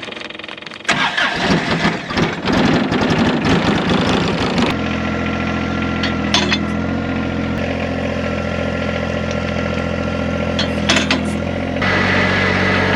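John Deere tractor engine cranking and starting: about four seconds of rough, uneven cranking, then it catches and runs at a steady idle. Near the end the throttle is raised and it runs faster and louder.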